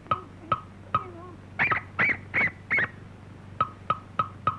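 Cartoon soundtrack effects: sparse sharp clicks on a beat, broken about one and a half seconds in by four quick, high yelping squeals, each rising then falling, before the clicks return.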